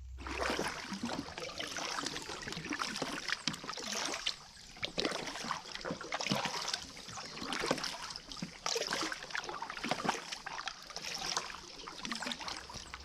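A person walking through shallow water and wet brush, with irregular splashing and crackling footsteps.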